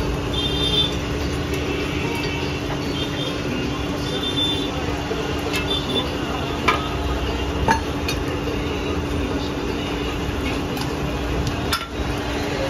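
Steady hum of workshop machinery, an electric motor running with a constant low tone and a rush of air, as at a blower-fed coal forge. Over it, several sharp metallic clinks of tongs on the work and fire, the loudest a little past halfway.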